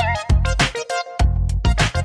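Music with a deep bass line, chopped into short stuttering pieces, with a brief cut-out about a second in before it starts again.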